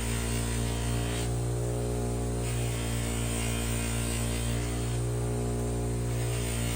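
Steady electrical hum with a buzz of evenly spaced overtones, under a hiss that drops away briefly twice.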